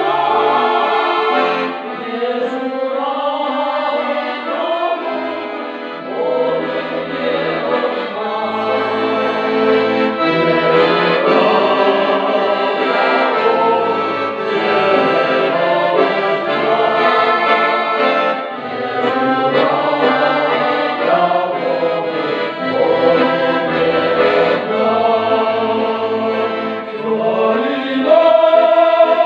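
Mixed choir of women's and men's voices singing a Ukrainian folk song in harmony, accompanied by a piano accordion.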